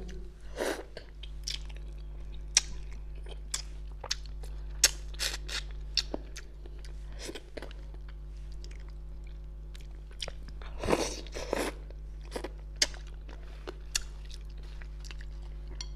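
A person chewing tender braised fish close to a clip-on microphone: irregular wet mouth clicks and smacks, with a louder cluster about eleven seconds in. A steady low hum runs underneath.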